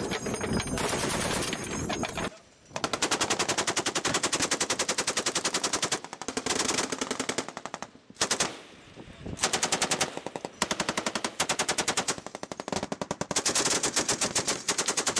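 Boat-mounted machine guns, a .50-calibre M2 and an M240, firing long bursts of rapid automatic fire, broken by a few short pauses.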